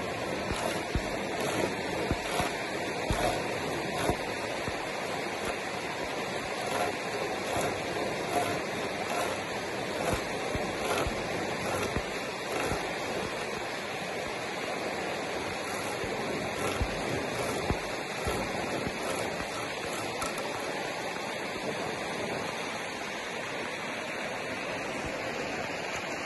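Fast mountain stream rushing steadily over rocks, with scattered sharp knocks of wood being chopped, closest together in the first few seconds.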